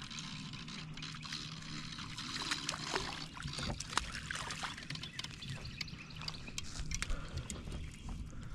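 A hooked crappie splashing and thrashing at the water's surface, a run of small irregular splashes and drips. A faint, steady low hum lies underneath.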